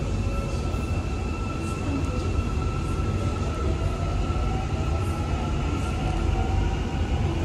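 Electric metro train running, heard from inside the passenger car: a steady low rumble of wheels on rails with a faint, even high whine over it.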